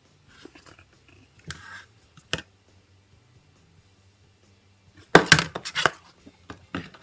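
Bicycle saddle bag being handled: rustling and sharp plastic-like clicks, with a loud burst of rustling and knocks about five seconds in.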